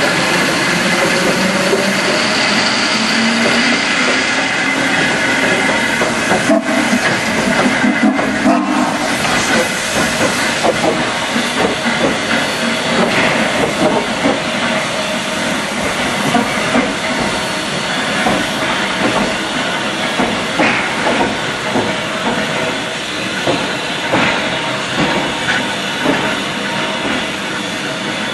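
Steam locomotive No. 734, a 2-8-0, hissing steam steadily while it stands on a turning turntable.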